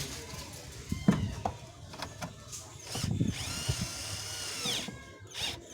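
Cordless drill-driver running once for about a second and a half, its whine rising as it spins up and falling as it stops, with a few knocks of tools and parts before it.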